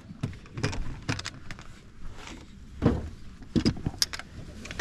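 Irregular knocks, clicks and rattles, as of gear being handled in a fishing boat, over a faint low steady hum; the knocks come thickest about three to four seconds in.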